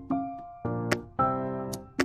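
Background music: keyboard notes over a beat with sharp clicks.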